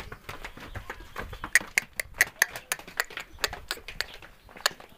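Goat's hooves clicking on a hard floor as it walks: a run of sharp, irregular clicks, several a second.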